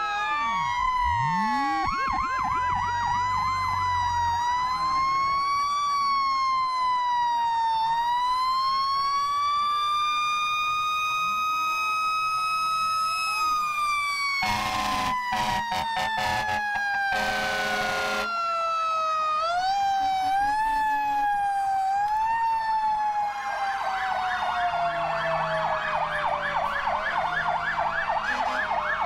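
Several fire truck sirens wailing together, slowly rising and falling in pitch as the trucks pass. About halfway through, a horn sounds in two long blasts, and near the end a siren switches to a fast yelp.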